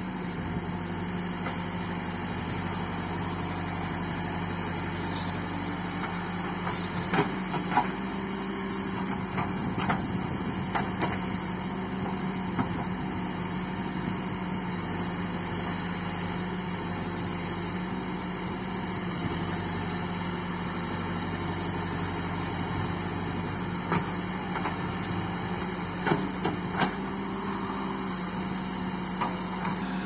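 Diesel engine of a backhoe loader running steadily while it digs and loads soil, with sharp metal clanks from the bucket and arms scattered through: a cluster about seven to thirteen seconds in and a few more near the end.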